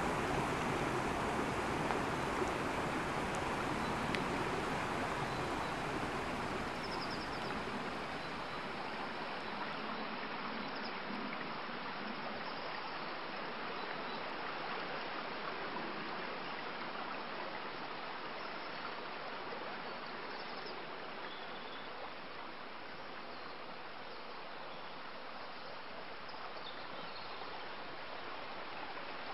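A small woodland stream running, a steady rush of water that eases off a little after the first several seconds.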